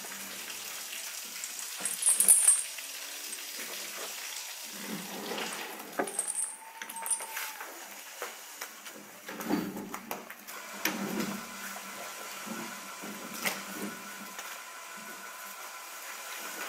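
Scattered metallic clinks and knocks from hand work on a steel manure scraper's chain and frame, with a louder rattle about two seconds in, over steady cattle-barn background noise.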